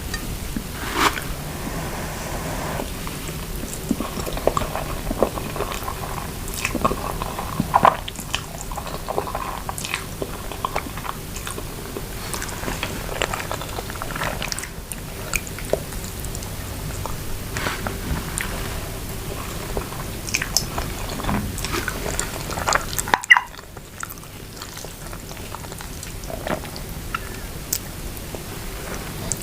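Close-miked eating: chewing and biting instant noodles with grilled chicken pieces, with many short wet clicks and smacks over a steady hiss. A loud click comes about 23 seconds in, and the background is quieter after it.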